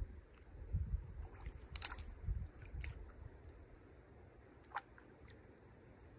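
Faint crackling and rustling of dry leaves and twigs being handled, with a few sharp snaps, the loudest about two seconds in and another near five seconds.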